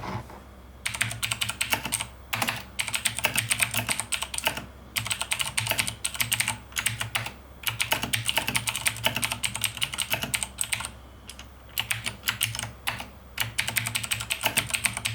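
Fast typing on a mechanical keyboard with clicky, tactile switches: dense runs of sharp key clicks lasting a second or a few seconds each, broken by short pauses.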